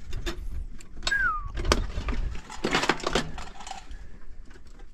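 A loose piece of metal aircraft wreckage falling and clattering: a cluster of metallic knocks and rattles about two and a half to three seconds in, among scattered clicks and scrapes. There is also one short falling squeal about a second in.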